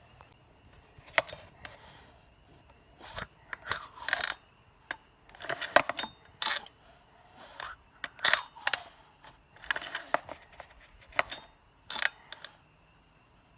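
Stihl MS261 C two-stroke chainsaw being pull-started over and over: short rasping pulls of the recoil starter rope, about one a second, with the engine turning over but never firing. The saw will not start even with spark and fuel in the cylinder.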